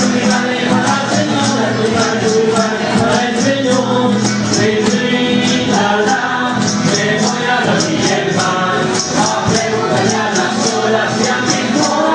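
Music for a Mapuche purrun dance: voices singing together over a steady high jingling, shaken beat of about three strokes a second.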